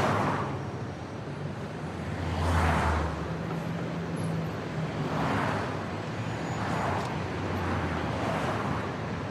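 Road traffic: a steady low engine hum with vehicles swishing past every couple of seconds.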